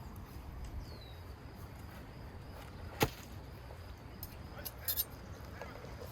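Outdoor ambience with a low rumble of wind, a single sharp knock about three seconds in, a few fainter clicks a little later, and one short falling bird chirp near the start.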